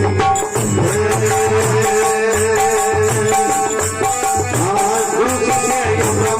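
Folk devotional bhajan music: a held, wavering melody line over a steady hand-drum beat with rattling percussion.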